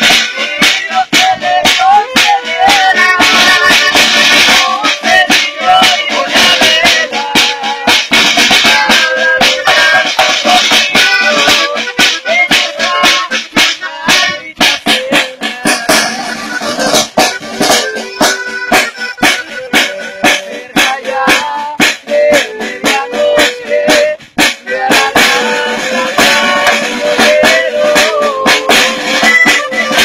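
A live norteño band plays an instrumental passage with no singing. Button accordion and saxophone carry the melody over strummed acoustic guitar and a steady snare drum beat.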